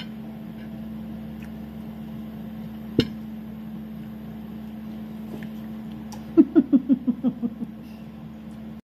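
A short burst of laughter, a quick run of about eight ha's that fade away, starting about six seconds in. Under it, a steady low hum, and a single sharp click of a spoon against a stainless steel bowl about three seconds in.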